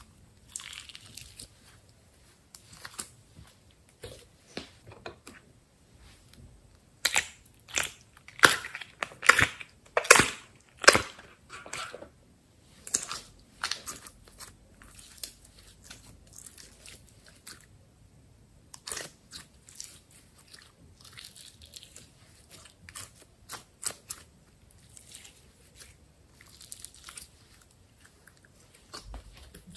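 Slime being squeezed, stretched and folded by hand, giving irregular wet clicks, pops and crackles. A run of louder pops comes about a quarter of the way in.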